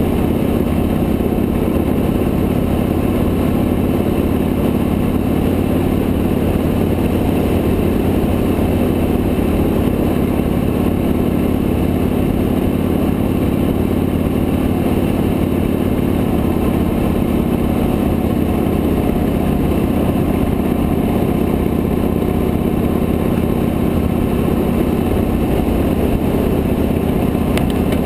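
Victory High-Ball motorcycle's V-twin engine running at a steady cruise, its even note over a steady haze of road noise.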